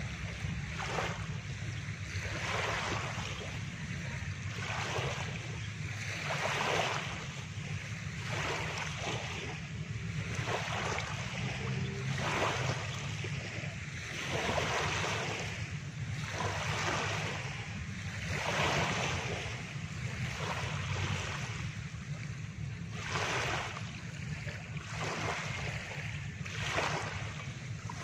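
Small waves breaking and washing up a sand-and-pebble shore, a hiss that swells and fades every second or two, with a steady low rumble underneath.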